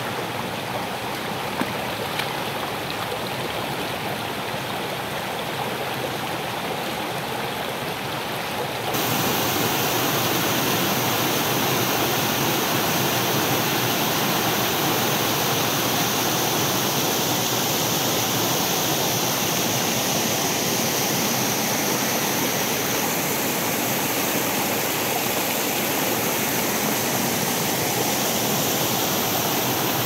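Shallow stream rippling over a pebble bed, then, about nine seconds in, the louder, brighter, steady rush of a small waterfall cascading over boulders.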